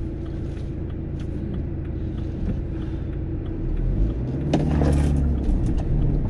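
2013 BMW 318d on the move, heard from inside the cabin: diesel engine and road noise with scattered faint clicks and knocks, the front-end rattle that the owner traces to a worn front right track rod end. About four and a half seconds in, the engine note rises and gets louder.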